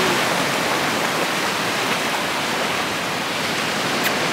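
Shallow sea surf washing in over the sand close by: a steady rush of foaming water that eases slightly toward the end, with one short click near the end.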